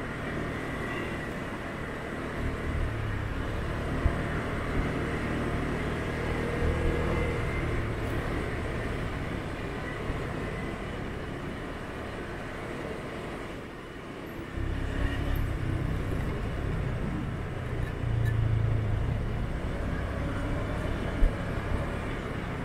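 A car driving through town traffic: steady engine and road rumble. It drops away briefly about two-thirds of the way through, then comes back stronger as the car pulls on again.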